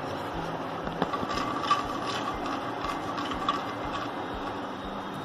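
Mustard seeds spluttering in hot oil in a kadai: a steady sizzle with a scatter of sharp pops, thickest between about one and four seconds in, while a wooden spatula stirs the pan.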